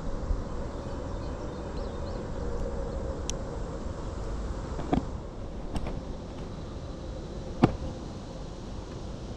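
Steady low outdoor rumble with a faint hum, broken by four short sharp clicks or taps; the loudest comes about seven and a half seconds in.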